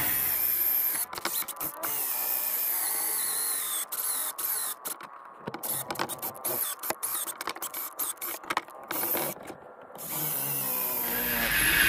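Battery drill whining as it bores into a wooden engine mount, its pitch sliding down as it bogs under load, then starting and stopping in short bursts. The drill is struggling, too weak to get through the wood though its battery is not low.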